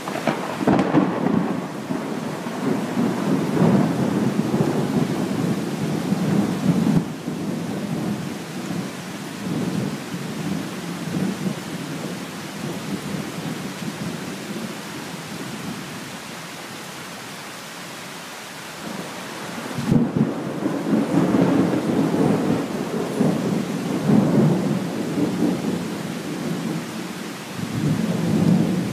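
Steady tropical rain with long rolls of thunder. One rumble rolls through the first several seconds, then the rain goes on alone for a while. A second rumble comes about two-thirds of the way through, and another starts near the end.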